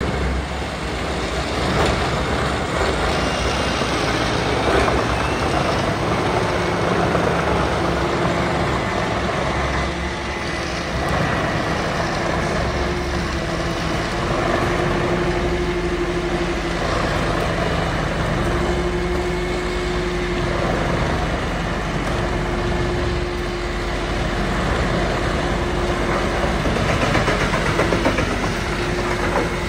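Truck-mounted Noremat Valormax DMC 593 wood chipper running at work, a loud steady mechanical noise while its crane feeds logs in. A humming tone comes and goes several times in the second half.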